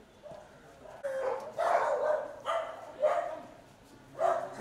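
Dog barking repeatedly, a string of about five loud barks starting about a second in.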